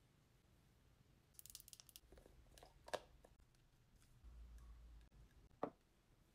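Faint handling of a small plastic cosmetic jar with a metal clasp: a brief crinkly rustle, scattered small clicks, and two sharp clicks about three seconds apart, with a dull low bump between them.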